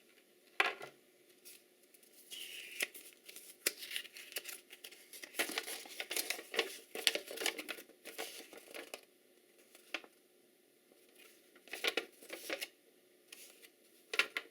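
Packaging being handled and opened by hand: irregular crinkling and rustling with sharp clicks and tearing, busiest in the middle, with a few separate bursts towards the end.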